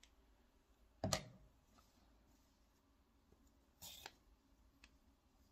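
Quiet handling of scissors, crochet hook and yarn after the yarn is cut: a short knock about a second in, then a couple of light clicks about four seconds in.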